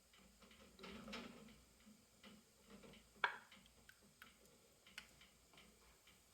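Faint scattered clicks and light taps, with one sharper click about three seconds in.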